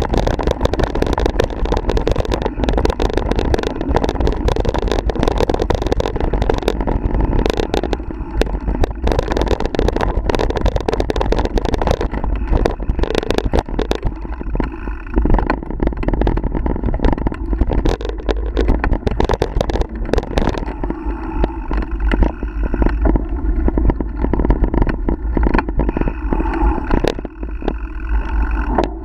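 Ride noise from a mountain bike on a dirt forest trail, heard from a camera on the bike: a continuous rush of wind and tyre noise with frequent sharp rattles and knocks as the bike goes over rough ground.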